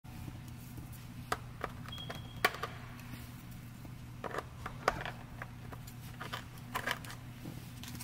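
Sharp plastic clicks and snaps as a plastic pry tool works at the back of a Toyota Land Cruiser 200's steering wheel to free it. There are several clicks, the loudest about two and a half seconds in and about five seconds in, over a steady low hum.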